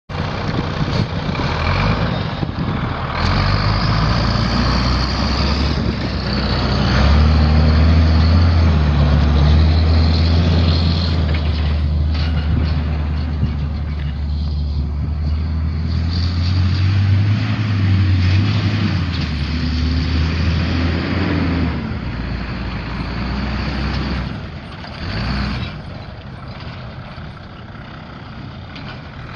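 Fire truck's Cummins six-cylinder turbo diesel engine running, its pitch rising and falling a few times about midway, then quieter toward the end.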